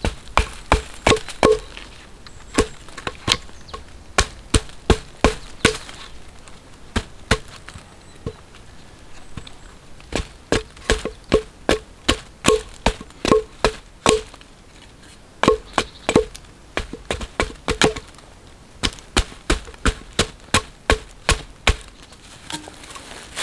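Hatchet chopping into a dead pine log to cut out resin-rich fatwood: rapid short strikes, about two to three a second, in runs broken by short pauses.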